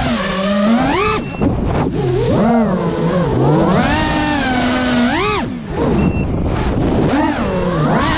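FPV freestyle quadcopter's brushless motors whining, their pitch swooping up and down sharply about five times as the throttle is punched and eased.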